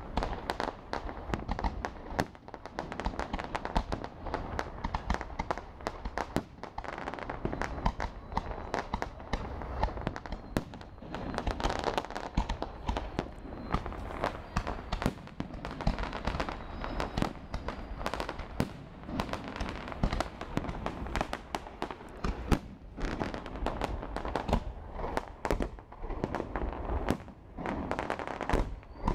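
Aerial fireworks display: a dense, unbroken barrage of shell bursts, bangs and crackling pops in quick succession, with one especially loud bang about two-thirds of the way through.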